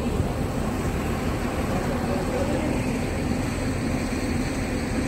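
Steady low rumble of street traffic, with no distinct events standing out.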